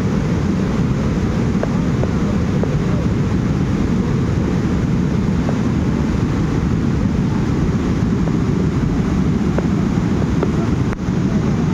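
Mudflow of brown floodwater, stones and debris rushing past: a loud, steady rushing noise, heaviest in the low range.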